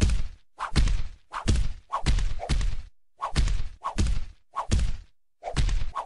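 A rapid series of slapping hits, about a dozen at roughly two a second and often in quick pairs, each a deep thud with a sharp crack, matching a calico cat swatting a dog in the face with its paw.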